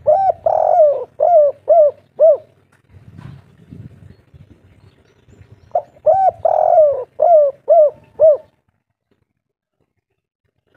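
Spotted dove cooing its song twice, about six seconds apart: each phrase opens with a long coo and ends in three short, separate 'kuk' notes, the 'kuk 3' song type.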